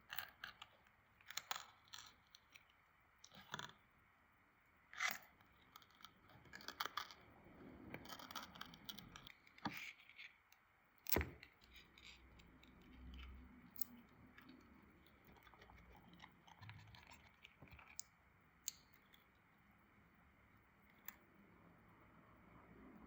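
Scattered small clicks, taps and light scrapes of repair tools and small phone parts being handled while an iPhone 11 Pro is reassembled into its new housing. The sharpest clicks come about 5 and 11 seconds in.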